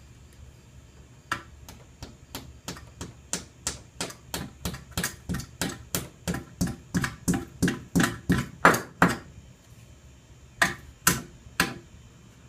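Hammer blows: a steady run of about thirty strikes, three or four a second, growing louder, then a short pause and three more heavy blows near the end.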